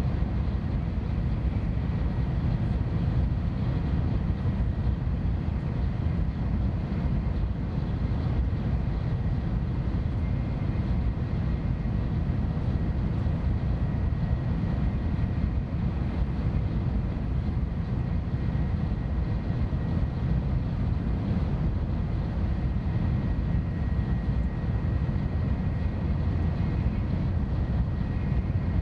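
Shinkansen bullet train at high speed heard from inside the passenger cabin: a steady low rumble of running noise, with a faint steady high whine above it.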